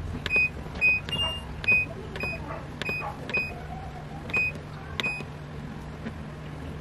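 Control panel of a Whirlpool WFRB752BHW front-load washing machine beeping as its buttons are pressed to change the temperature and spin-speed settings. There are about nine short high beeps in the first five seconds, each with a light click of the button, and one slightly higher, longer beep just after a second in. A low steady hum runs underneath.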